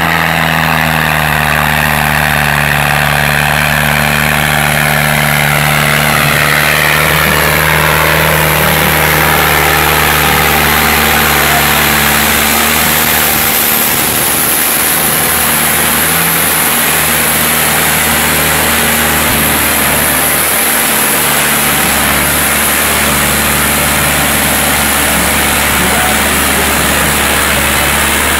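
Farm tractor's diesel engine running hard and steady under heavy load as it pulls in a tractor tug-of-war.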